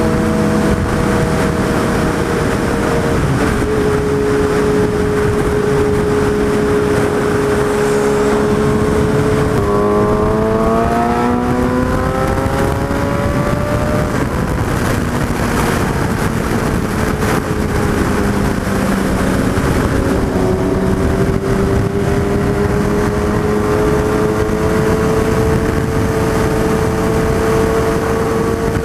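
Suzuki Hayabusa's inline-four engine heard from the rider's seat at highway speed, with steady wind rush over the microphone. About ten seconds in the engine note jumps up and climbs for a few seconds under hard acceleration, then sinks slowly as the throttle eases, and near the end builds again.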